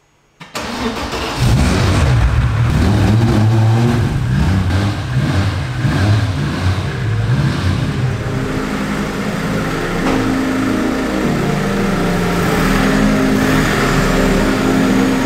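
A Mercedes CLK drift car's engine starts with a sudden burst about half a second in, then runs and revs loudly. Its pitch shifts up and down before settling into a steadier running note in the second half.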